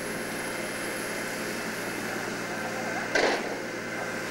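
Steady mechanical hum and hiss, with one short, loud burst of noise about three seconds in.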